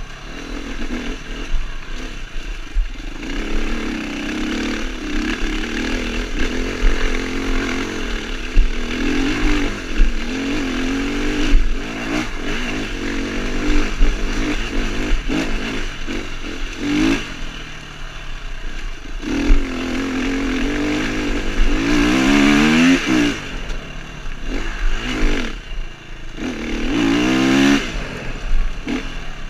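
Dirt bike engine running under changing throttle, its note rising and falling continuously, with quick revs climbing sharply in pitch about two-thirds through and again near the end.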